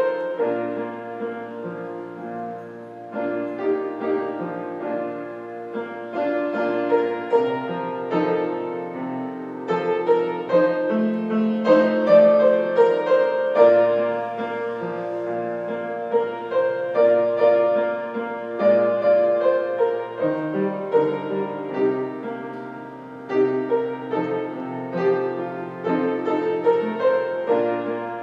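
Piano playing a slow instrumental piece of held chords and a melody.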